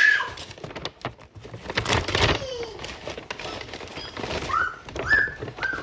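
A toddler's short, high-pitched squeals and coos, several in quick succession near the end, with a stretch of noisy clatter about two seconds in.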